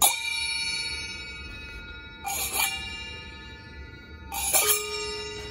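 A pair of small brass hand cymbals struck together three times, about two seconds apart, each strike ringing on and slowly fading.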